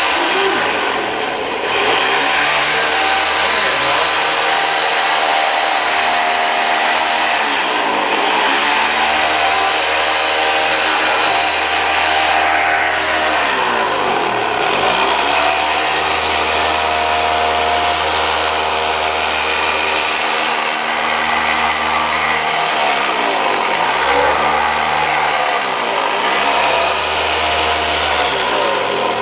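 A large handheld electric sander running continuously as it sands an old wooden board, a steady motor noise whose pitch wavers slightly as it is worked along.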